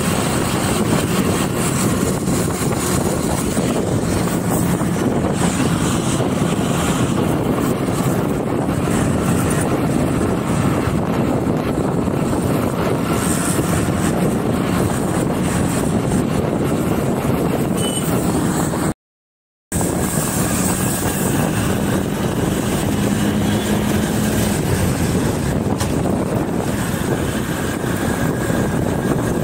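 Steady noise of riding along a street as a passenger: a vehicle running, with wind and road rumble on a phone microphone. The sound drops out completely for under a second about two-thirds of the way in.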